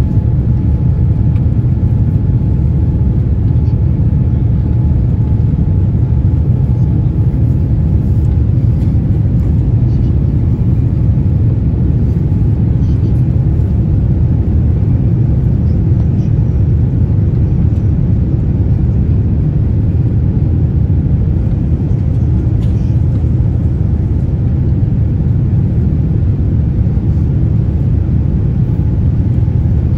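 Steady low rumble of jet engines and rushing air heard inside an airliner cabin, climbing after takeoff.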